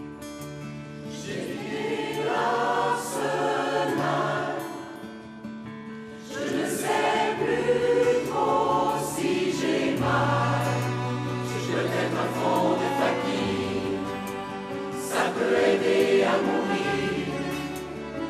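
Large mixed choir of men and women singing with instrumental accompaniment, sustained low notes under the voices. The singing comes in swelling phrases, easing off briefly about six seconds in before returning.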